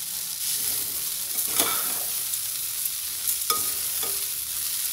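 Slotted metal spatula stirring and scraping seasoned poha around an aluminium pan on the stove over a steady sizzling hiss, with a couple of louder scrapes against the pan, about one and a half and three and a half seconds in. The poha is being warmed through in the heat with its tempering as a last step.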